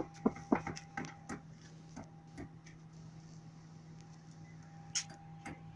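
Hand tools clicking and tapping on metal while a truck battery is being fitted: a quick run of sharp clicks in the first second and a half, a few scattered ones after, and one more near the end, over a steady low hum.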